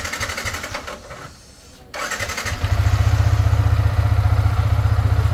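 Yamaha R15 M single-cylinder motorcycle engine being electric-started: the starter cranks for about a second, stops briefly, cranks again and the engine catches about two and a half seconds in, then idles steadily. It runs without the earlier abnormal noise now that the broken spring on the magnet (magneto) side has been fixed.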